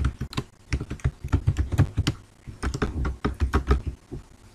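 Computer keyboard being typed on: about a dozen quick, sharp keystrokes in two fast runs with a short pause between them, stopping about four seconds in.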